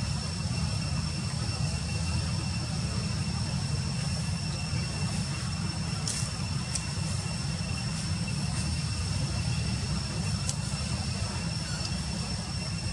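Steady outdoor background: a constant low rumble with a continuous high-pitched whine over it, and a few faint clicks about halfway through and again near the end.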